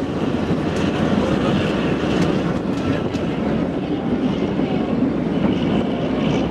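Narrow-gauge passenger train carriage running along the track, heard from its open window: a steady rumble of wheels and carriage, with a few faint clicks.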